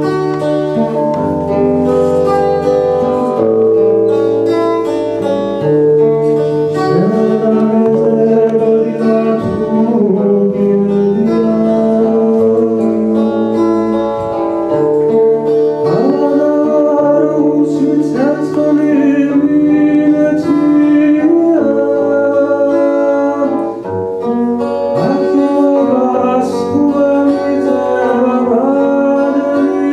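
Live singing of a Georgian mukhambazi: several voices in harmony over acoustic guitar accompaniment, with long held, sliding notes.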